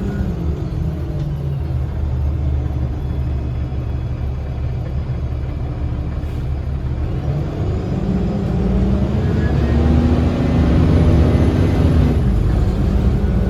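Cummins ISL diesel engine of a 2010 Gillig BRT transit bus running, heard from inside the bus: a steady low drone that grows louder and rises in pitch from about eight seconds in as the engine comes under more power.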